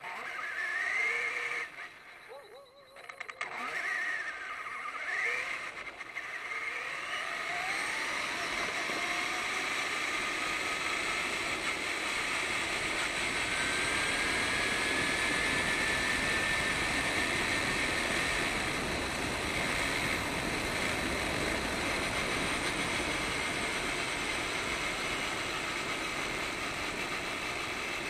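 Radio-controlled car running, heard from its onboard camera: a few short revs rising and falling in pitch over the first seconds, then a steady running noise of motor, drivetrain and tyres as it drives along the road.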